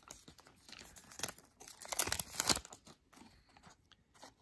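Foil wrapper of a hockey card pack crinkling and rustling as the stack of cards is slid out of it by hand. The crinkles come in short bursts, loudest about two seconds in, and die away near the end.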